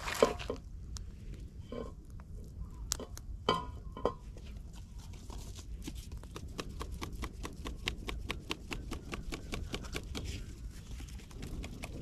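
Small wood-and-reed fire crackling under a steel pot, with a dense run of sharp pops from about five seconds in. Two louder knocks come in the first four seconds, over a steady low wind rumble.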